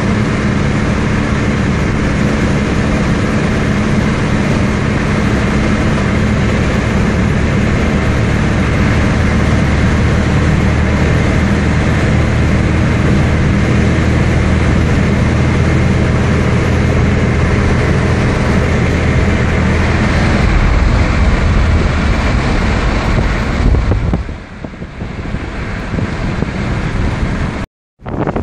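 Car cabin noise while driving: a steady low engine hum over tyre and road noise. About 24 seconds in it turns quieter, and near the end there is a brief cut to silence.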